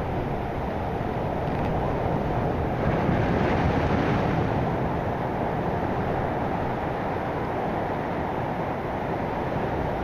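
Heavy typhoon surf breaking and washing up the shore in a continuous roar, swelling to a louder crash about three seconds in, with wind buffeting the microphone.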